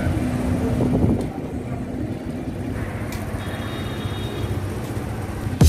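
Vehicle engines running at a petrol station, a steady low rumble, with a faint high steady tone for about a second midway.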